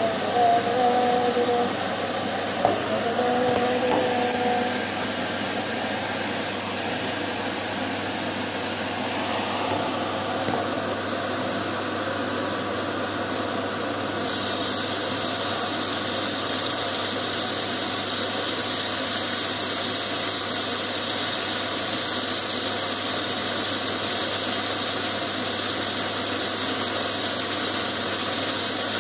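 A steady hiss from cooking on the stove. About fourteen seconds in it jumps suddenly louder and brighter and then holds at that level.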